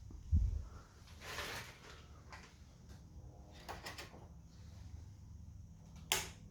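A heavy low thump, then a short rustling hiss, a few light clicks and a sharp click near the end, over a faint steady low hum.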